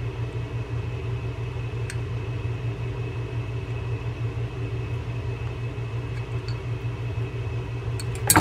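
Steady low mechanical hum with a faint high whine, a single click about two seconds in, and a few sharp metallic clicks near the end as small reel parts and pliers are handled on the bench.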